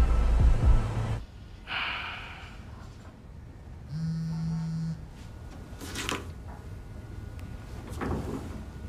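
A low car rumble cuts off about a second in, leaving a quiet room. In it come a heavy breath or sigh, a short steady hum lasting about a second, and a couple of sniffs or sharp breaths near the end.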